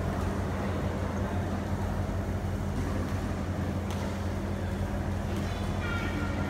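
Steady low hum of a large indoor sports hall, with a couple of faint knocks and a short high squeak near the end.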